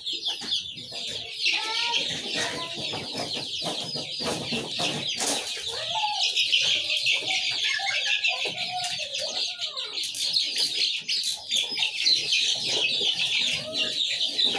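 A cage of young desi chickens, about two months old, peeping continuously in a high chorus, with lower, louder squawks and clucks from about two seconds in as a hand reaches in to catch one; short knocks and some wing flapping among them.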